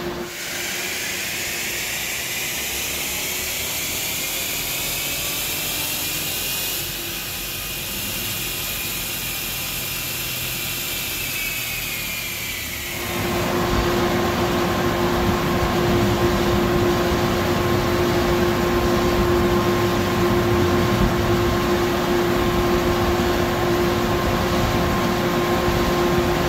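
Machinery in a chassis dyno cell: a high whine rises in pitch over several seconds, levels off and eases, then stops about thirteen seconds in. A steady fan hum is left behind.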